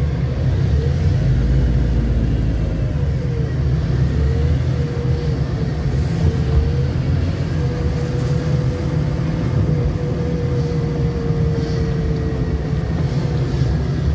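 Car driving slowly: a steady low rumble of engine and road, with an engine hum that drifts up and down in pitch.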